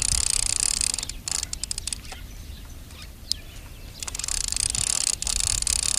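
Baitcaster reel being cranked to wind the freshly untangled line back onto the spool: a high whirring with rapid fine ticks. It stops for a few seconds after about a second and starts again about four seconds in.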